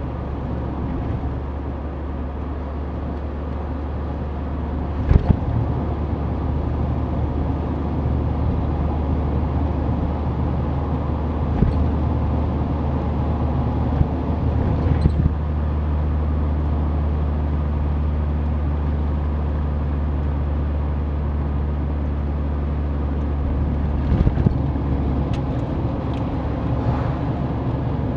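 Mazda Roadster's four-cylinder engine running steadily under road and tyre noise while cruising, with a few brief knocks from bumps in the road surface. The engine note shifts slightly about halfway through and again near the end.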